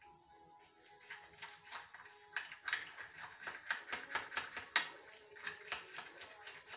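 Metal spoon stirring a thick lemon icing in a small cup, clicking rapidly against the cup's sides, several clicks a second from about a second in.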